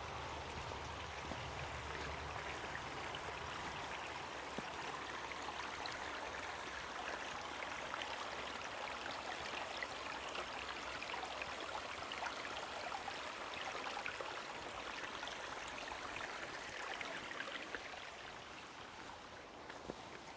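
Stream water running steadily over stones, fading over the last few seconds.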